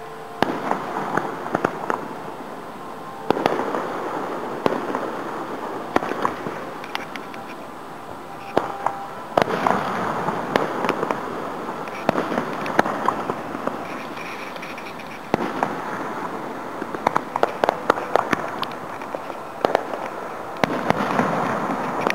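Aerial fireworks shells bursting, heard from about a quarter mile off: roughly six sharp bangs a few seconds apart, each trailing off in a long echo, with a quick string of smaller pops in the last third.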